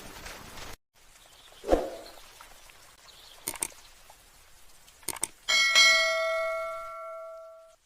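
A soft thump, then a few light clicks, then a single struck metallic ring with several bell-like tones that dies away over about two seconds. A moment of rain hiss cuts off just before it.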